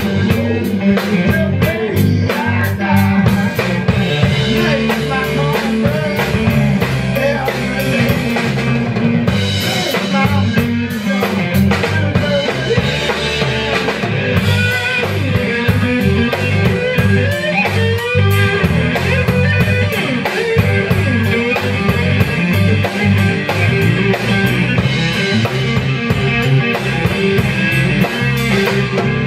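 Instrumental stretch of live rock music: a Squier Starcaster electric guitar played with a brass slide over a drum kit beat.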